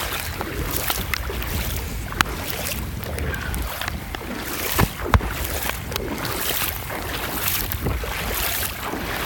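Floodwater sloshing and splashing as a person wades through it shin-deep, with wind buffeting the microphone and a few sharp clicks.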